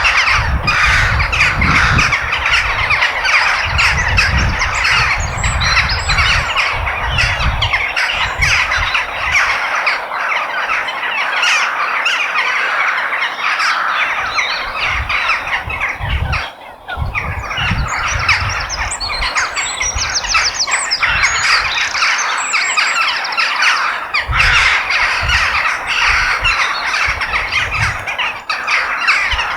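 A large flock of crows cawing and squawking all at once, a dense chorus of overlapping harsh calls, with some higher chirps mixed in about two-thirds of the way through.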